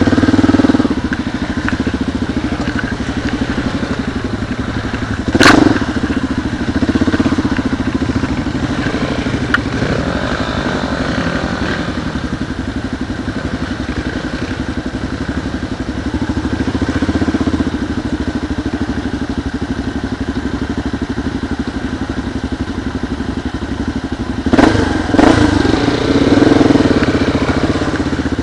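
Kawasaki KLR dual-sport motorcycle's single-cylinder engine running at steady, low trail revs as the bike picks its way over rough ground. Loud knocks and clatter from the bike jolting over bumps come about five seconds in and again twice near the end.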